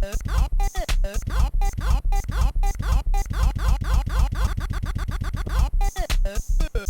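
Electronic beat and bass line looped on a Korg Kaossilator, chopped into a stuttering breakdown as the loop length is cut shorter. For a couple of seconds past the middle the repeats come much faster before the pattern changes near the end.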